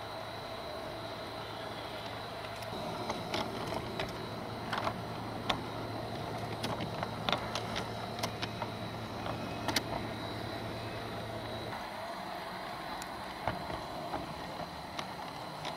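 An LGB garden-scale model train running along its track: a steady motor hum with a thin high whine, and scattered sharp clicks as the wheels roll over the rails. The low hum drops away about twelve seconds in.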